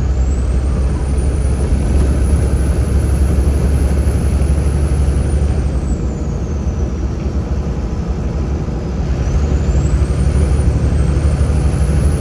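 Inside a semi-truck cab at highway speed: a steady low engine and road drone, with a thin high whine that falls and rises again twice.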